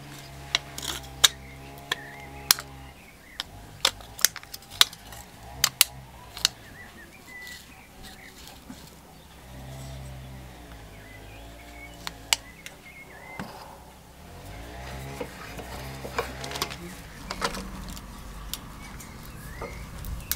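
Sharp taps and crinkling clicks of a thin aluminium beer-can sheet being handled and pressed into a wooden template and wood blocks, scattered irregularly and thickest in the first few seconds and again near the end. A low hum comes and goes underneath.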